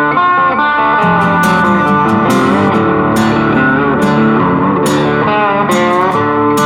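Background music: a guitar-led instrumental track with plucked and strummed electric guitar over bass and a steady beat.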